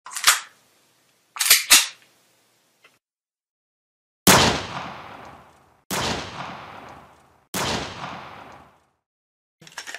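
Gun-handling clicks: one sharp click, then a quick double click. Then three loud single gunshots about a second and a half apart, each dying away over about a second.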